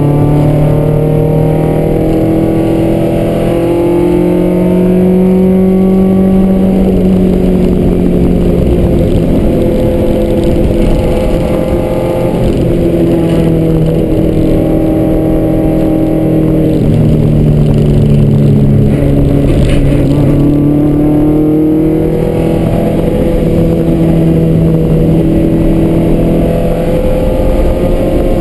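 Toyota AE86's engine heard from inside the cabin while driven hard on track, its pitch rising and falling through the corners, with a few sudden pitch steps as it shifts or lifts.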